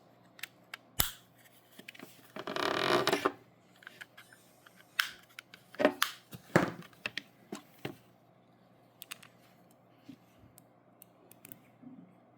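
Scattered sharp clicks and handling noises from the recliner remote being worked, with one loud rustling burst about two and a half seconds in.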